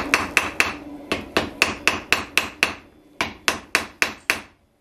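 Hand hammer striking a welding-heat steel bar on an anvil in quick, even blows, about five a second, stopping shortly before the end: forge-welding a scarf down.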